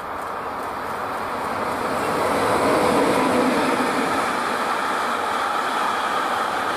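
Container freight train passing, wagons loaded with shipping containers. The rolling noise of its wheels grows louder over the first three seconds as it nears, then holds steady as the wagons roll by.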